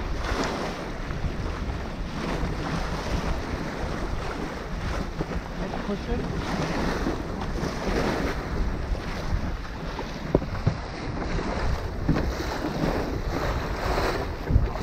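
Water rushing and splashing along the hull of a Cornish Shrimper 19 sailboat making way under sail, with wind buffeting the microphone. The rush swells every second or two as waves wash past, and there are a couple of sharp knocks, one about ten seconds in and one near the end.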